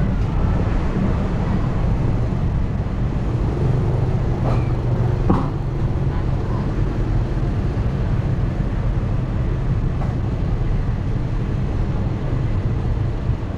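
Steady road and engine noise with wind rumble, heard from a vehicle driving along a street, with a couple of faint brief knocks around four and five seconds in.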